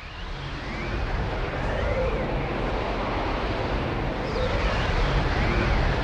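Swirling vortex sound effect: a dense rushing noise with a deep rumble, fading in over about the first second, with faint tones sweeping up and down in repeated swirling glides.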